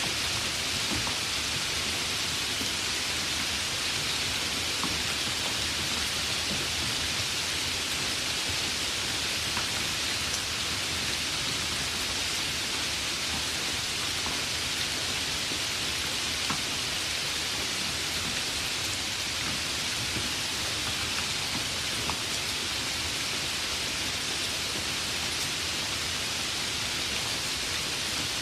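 Heavy rain falling steadily, a dense even hiss with a few scattered drop clicks.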